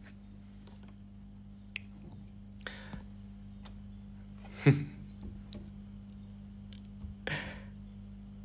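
Quiet room with a low steady hum, scattered small clicks and handling noises of a phone held in the hand, and two short breathy bursts, about halfway and near the end, the first with a brief vocal grunt.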